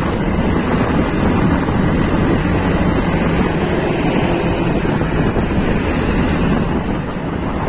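Steady wind rushing over the microphone, mixed with the engine and road noise of riding in traffic behind trucks.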